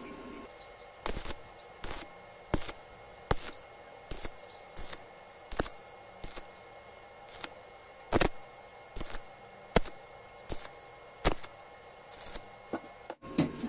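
Stick (arc) welding a joint in thin-walled steel square tube: the arc crackles in short, evenly spaced pulses, about one every three-quarters of a second, over a faint steady hum.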